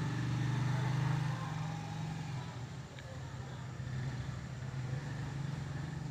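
A motor vehicle engine running steadily with a low hum, a little louder in the first second or so.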